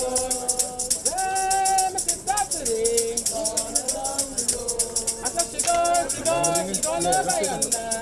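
Voices singing with a shaker keeping a steady, quick beat.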